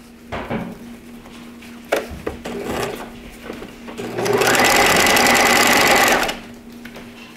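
Bernina 1008 sewing machine stitching a seam in one fast, steady run of about two seconds, a little past halfway through, with a high whine under the needle's rattle, then stopping abruptly. Before it come a few soft knocks and rustles, one of them a sharp knock.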